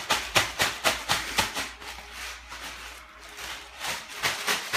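Ice cubes rattling in a plastic zip-top bag shaken hard and rhythmically, about four shakes a second, easing off for a moment in the middle before picking up again near the end.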